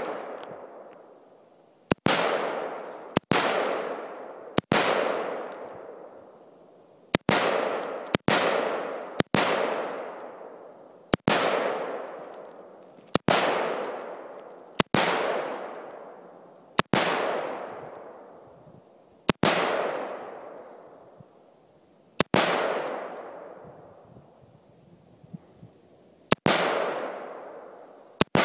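Bushmaster AR-15 rifle fired in single semi-automatic shots, about fourteen of them spaced one to three seconds apart. Each sharp crack is followed by a long echo that dies away over a second or two, and there is a pause of about four seconds near the end.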